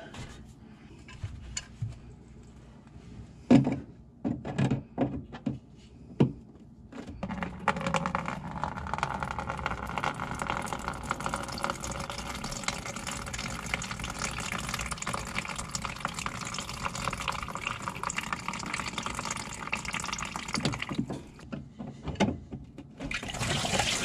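A few clicks and knocks of pliers on the hose clamp, then, from about eight seconds in, a steady stream of water running out of a front-load washer's tub through the loosened rubber drain boot into a plastic container. It eases off near the end, then surges again. The water is standing in the tub because a clog keeps the drain pump from pumping it out.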